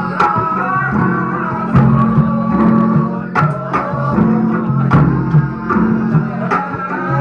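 Live music accompanying a Javanese angguk dance: sharp drum strokes at irregular spacing over held low notes and a melodic line with a singing voice.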